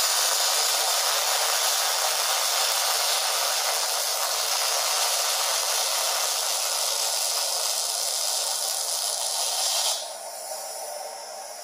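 MIG welding arc sizzling steadily as a weld bead is run, stopping about ten seconds in. After it stops, a lower, steady hiss of extraction airflow carries on.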